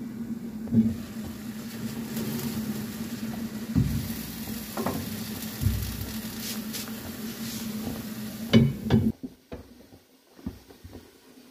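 Pancit canton noodles and vegetables simmering in a nonstick pan: a steady hiss over a steady low hum, with several knocks as the pan's lid is set on and lifted off. The hiss and hum stop suddenly about nine seconds in.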